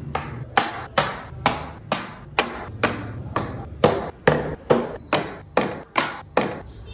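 Hammer blows on a chisel cutting wood, a steady run of about two sharp strikes a second, each ringing briefly, stopping just before the end.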